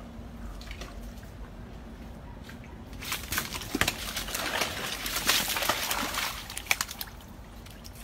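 Crocodiles splashing and thrashing in shallow water as they snatch thrown food, a loud burst of splashing with sharp clicks from about three seconds in, dying down near the end.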